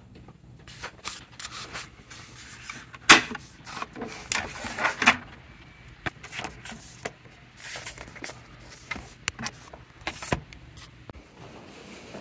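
A laptop and desk items being handled and packed up: irregular clicks, knocks and rustles, with one sharp knock about three seconds in.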